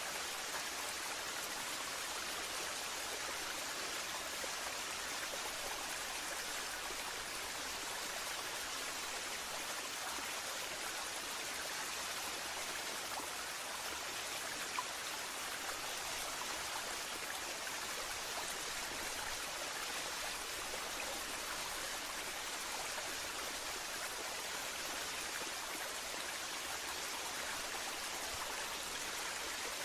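Waterfall water falling and splashing in a steady, unbroken hiss.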